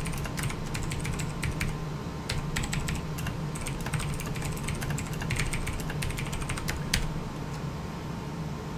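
Computer keyboard being typed on in quick runs of keystrokes with short pauses, over a steady low hum from an air conditioner.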